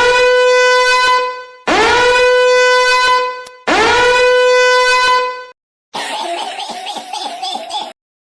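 Air horn sound effect: three loud, identical blasts, each swooping up into a held note, followed by a shorter, rougher fluttering sound effect that cuts off abruptly.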